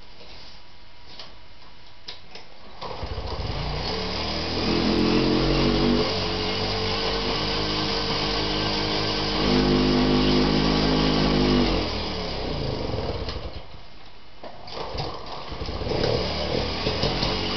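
A Vespa Piaggio 49cc two-stroke moped engine being spun over by pedaling with the throttle worked, a drone that rises and falls for about ten seconds while the engine is not yet running on its own. After a short lull it fires unevenly and catches near the end. A hard starter that the owner takes to be running lean.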